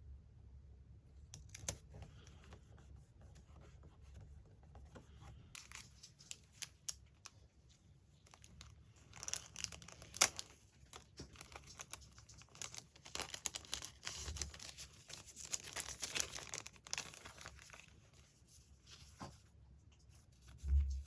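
Magazine paper being torn and crinkled, crackling densely through the middle of the stretch. A low thump comes near the end.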